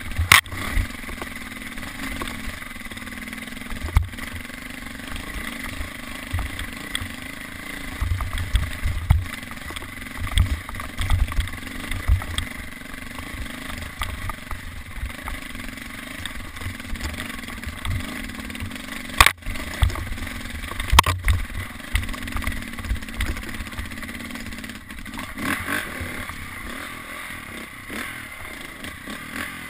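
Off-road dirt bike engine running and revving along rough singletrack, heard from a helmet-mounted camera, with low rumbling buffeting and a few sharp knocks from bumps on the trail.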